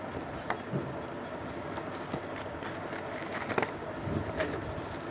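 Faint rustles and a few light taps of a paper warranty card and booklet being handled, over a steady background hiss.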